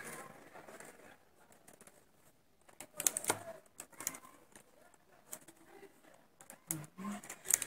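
Scattered light clicks of a metal hand transfer tool and latch needles on a Passap knitting machine's needle bed, as stitches are moved one by one to decrease for the neckline.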